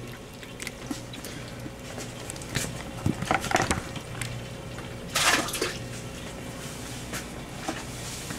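Water sloshing and splashing in a hand-held bucket of live baitfish as it is carried, in a few short bursts, the loudest about five seconds in, over a steady low hum.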